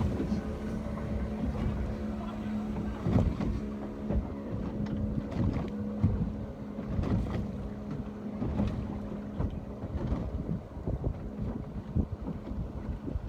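Ocean water sloshing and slapping irregularly, with wind buffeting the microphone, over a steady low boat-engine hum that stops about ten seconds in.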